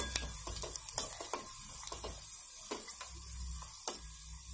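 Cumin seeds, kalonji and two dried red chillies sizzling in hot oil in a small steel pan, with scattered sharp crackles and clicks as a steel ladle stirs them: a tadka (tempering) for dal being fried.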